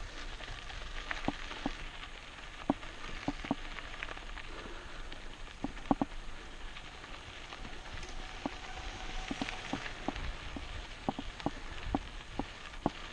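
Mountain bike rolling over a rough track: steady hiss of tyres and wind, with frequent sharp knocks and rattles at irregular moments.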